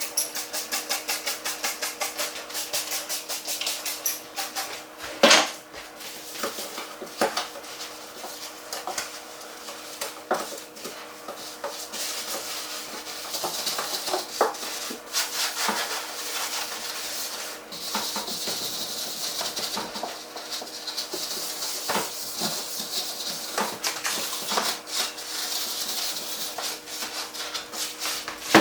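Scrubbing and wiping inside a fridge. Quick even scrubbing strokes for the first few seconds, then a rubbing hiss broken by scattered knocks of items and shelves being handled, with a sharp knock about five seconds in.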